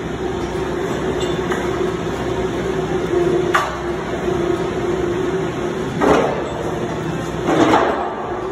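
A heavy welded steel sawmill frame of square tubing clanking and banging as it is flipped over, with sharp metal knocks about three and a half, six and seven and a half seconds in, over a steady mechanical hum.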